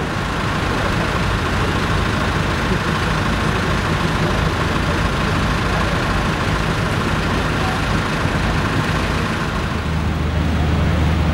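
Heavy truck engine idling steadily with a constant low drone, which grows stronger near the end.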